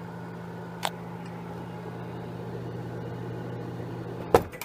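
Vintage Amana Radarange microwave oven running with a steady low hum. There is a short click about a second in and a loud clunk near the end.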